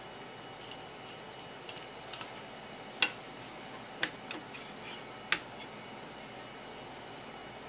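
Kitchen knife trimming the rib bones from an isaki (threeline grunt) fillet and knocking on a wooden cutting board: three sharp taps about a second apart, starting about three seconds in, with fainter clicks between, over a steady low hiss.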